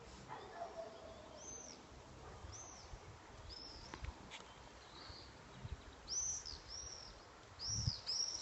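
A small bird chirping: short, high, arched chirps repeated at irregular intervals, closer together near the end. Short low rumbles break in during the second half, the loudest near the end.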